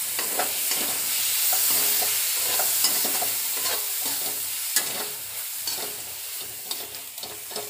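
Chopped tomatoes sizzling in hot oil and masala in a metal kadhai, stirred briskly with a metal spoon that scrapes and clicks against the pan. The sizzle eases off a little in the later part.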